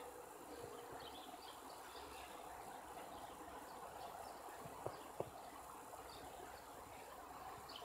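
Faint, steady background ambience with scattered brief high chirps and two sharp clicks about five seconds in; no sustained or pitch-changing tone is present.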